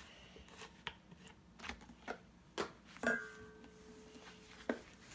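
Small clicks and knocks of slime-making supplies being handled on a table, with a faint steady tone for about a second and a half after the loudest knock, ending in another click.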